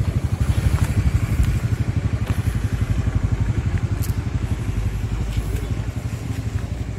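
Motorcycle engine running steadily at low revs, a fast even low pulsing.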